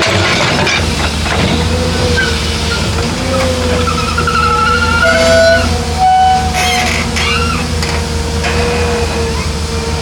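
Heavy diesel machinery running steadily, a low engine hum with high whistling tones that come and go over it.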